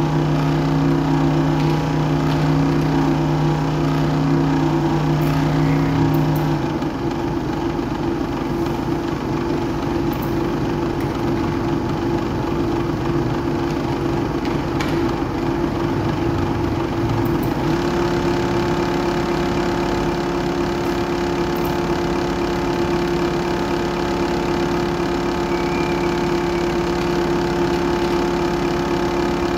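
Small electric motor on a control trainer turning a green disc, running with a steady hum. Its speed is set by the PLC's analog output. The tone turns rougher about six and a half seconds in, as the speed setpoint is lowered, and settles into a new steady hum at about eighteen seconds, as the setpoint is raised.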